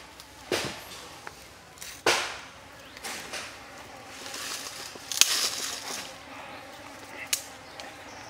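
Wooden chopsticks dabbing and pressing sauce onto a raw squid on a wooden chopping board: a handful of short, wet, sticky smacks and scrapes, the loudest about two seconds in and again about five seconds in.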